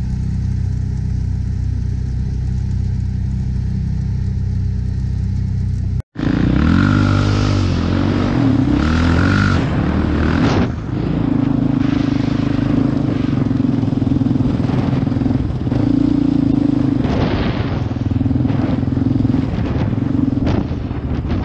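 Steady low drone of a car's engine and road noise heard inside the cabin; after an abrupt cut about six seconds in, a quad's engine revving up and down and then running steadily, with wind buffeting the microphone.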